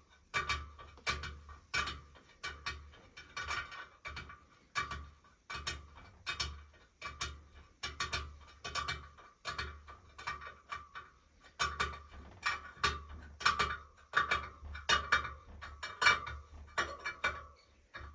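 Repeated sharp metallic clicks, each with a short ringing ping, coming irregularly two or three times a second as the spokes and nipples of a spoked speedway wheel are worked with a tool.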